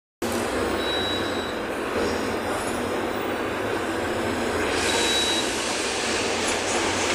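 Steady running noise inside a city bus under way: engine and road noise, with more hiss in the upper range from about five seconds in.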